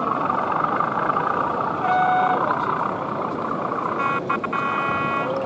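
The horn of a sound-fitted model train: a short toot about two seconds in, then a longer toot from about four seconds. Under it runs steady hall crowd chatter.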